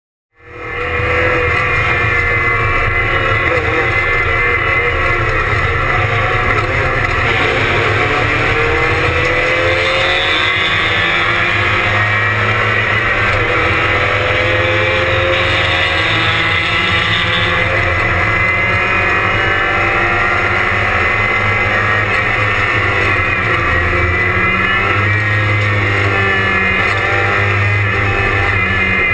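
Porsche 944 race car's four-cylinder engine running hard under racing load, heard loud from inside the stripped cabin, its pitch rising and dropping repeatedly as it accelerates and shifts. The sound fades in about half a second in.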